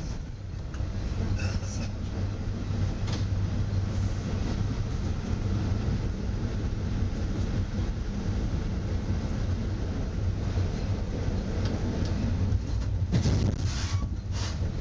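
Metra commuter train heard from inside its cab car while running: a steady low rumble of wheels on the rails, with a few clicks from the track, several of them near the end.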